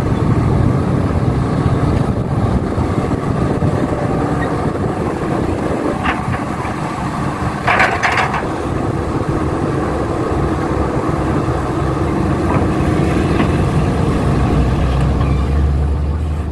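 Heavy diesel machinery running steadily with a deep engine rumble, with a brief sharper, higher sound about eight seconds in; the low drone steadies and deepens near the end.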